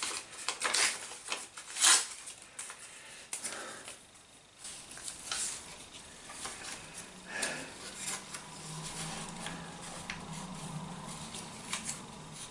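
Hands handling scrap paper and test leads: paper rustling, with light clicks and taps as clip leads are fitted to the pins of a small LED display module.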